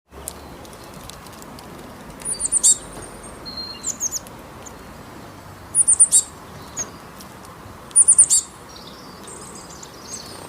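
Small birds chirping in short runs of three or four quick, high chirps, about four runs a couple of seconds apart, over a steady background hiss.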